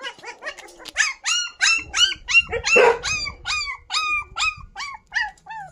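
Young puppies yelping and crying in a rapid series of short, high-pitched cries, each falling in pitch, about three a second, starting about a second in and growing fainter near the end. The rescuer takes the puppies to be hungry.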